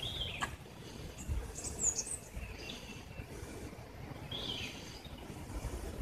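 Wild songbirds calling in several short, high chirps and sliding phrases spread a second or two apart, over a steady low rumble.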